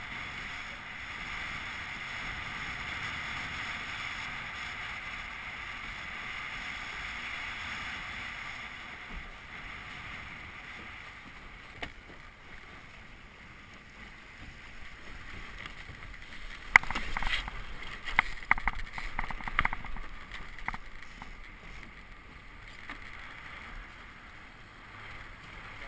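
Water rushing along a Melges 17 sailing scow under way, with wind on the microphone, as a steady hiss that eases after the first several seconds. Partway through comes a run of sharp clicks and knocks.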